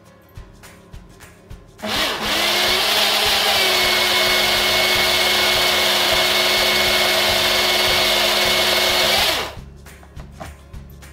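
Black+Decker countertop blender switched on about two seconds in, purées cooked mung beans. Its motor pitch climbs briefly as it spins up, runs steadily and loud, then cuts off sharply about seven seconds later. A few light knocks follow near the end as the jar is taken off the base.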